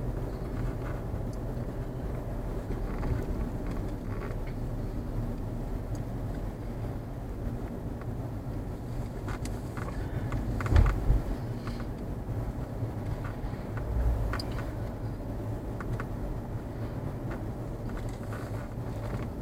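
Steady low road rumble inside a moving car's cabin, with two brief low thumps, one a little past the middle and another a few seconds later.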